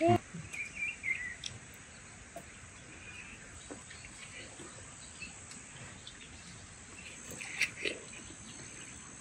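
Countryside ambience of crickets trilling steadily in a high, even hiss. A few short bird chirps come about a second in and again near the end, with a few faint clicks.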